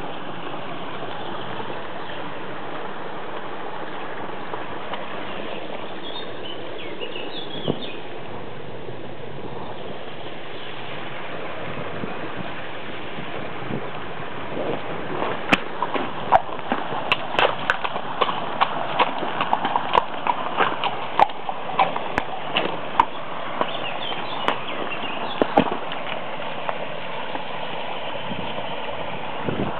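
A horse's hooves striking stones and gravel as it walks through a shallow stream, a run of sharp, irregular clops from about halfway in until near the end, over a steady rushing noise.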